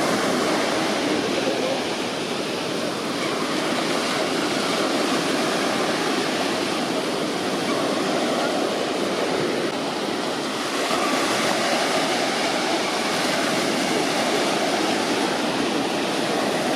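Sea waves breaking on the shore: a steady rushing wash that swells and eases slightly.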